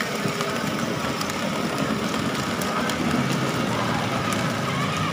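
Children's battery-powered ride-on toy jeep driving over brick paving: its plastic wheels rumble and rattle on the pavers over a steady, faint electric motor whine.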